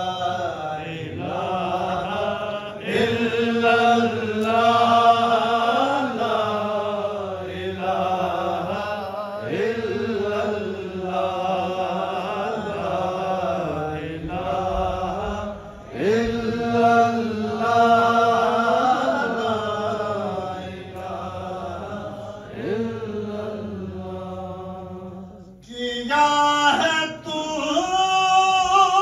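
A man's solo voice chants an Urdu devotional poem in long held notes that waver in pitch, broken by short pauses for breath.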